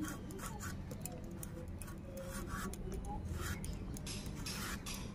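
A potato being peeled on a boti, the fixed upright Bengali kitchen blade, in a series of short scraping strokes.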